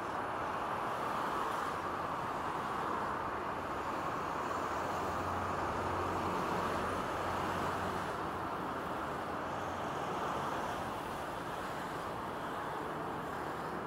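Steady road traffic noise from cars moving along a congested city street below. A low engine rumble grows louder for a few seconds around the middle.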